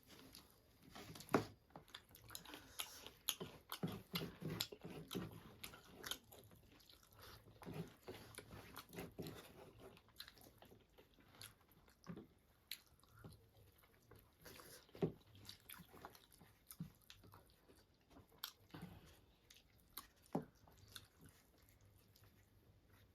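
A person chewing and biting food close to the microphone, with irregular mouth clicks and smacks and a few sharper bites.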